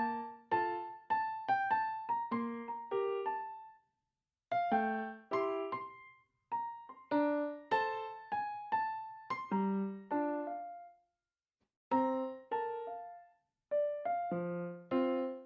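Background music: a gentle piano melody of single struck notes that ring and fade, played in short phrases separated by brief pauses.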